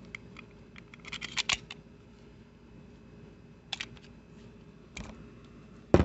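Small clicks and rattles of a Taurus 1911 .45 pistol and its steel magazine being handled as the magazine is drawn out of the grip, with a quick cluster of clicks early on and two louder knocks at the very end.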